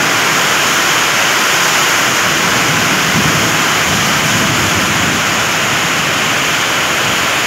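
Heavy wind-driven rain pouring down in a storm, a loud steady hiss.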